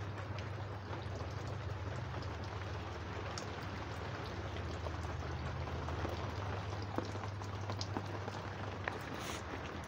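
Steady heavy rain hissing down, with many scattered sharp drop ticks, over a steady low hum.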